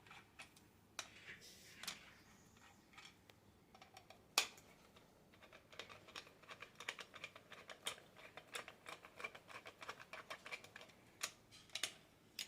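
Faint, rapid small metallic clicks and taps, with one sharper click about four seconds in: a screwdriver working the screws of a garbage disposal's sink mounting assembly loose.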